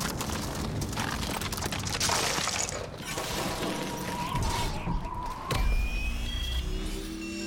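Film sound effects of an iced-over armoured suit in free fall: a steady rush of wind with ice cracking and shattering. A low boom comes about five and a half seconds in, and then music tones begin.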